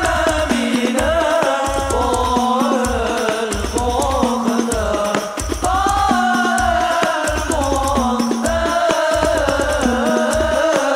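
Hadroh ensemble playing a sholawat: a male voice sings a long, ornamented devotional melody over a steady beat of hand drums and deep bass-drum pulses.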